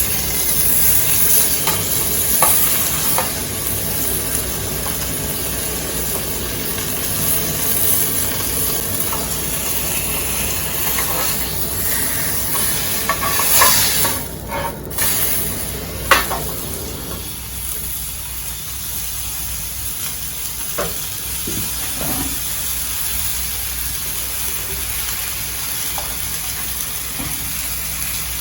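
Steak sizzling and frying in a mess tin, with a few light clicks. A sharp click comes about sixteen seconds in, after which the sizzle is thinner and a little quieter.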